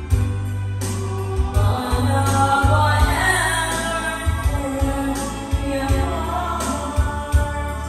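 A woman singing a love song into a karaoke microphone over the song's backing track from home speakers, with a heavy bass line under the voice.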